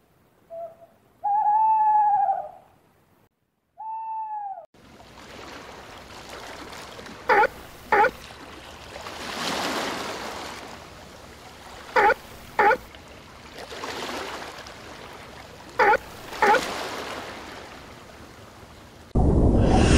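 An owl hooting: three hollow hoots in the first few seconds, the second the longest. Then a steady rush of surf with a seal's short barks in pairs, three pairs a few seconds apart, and a loud rushing noise cuts in just before the end.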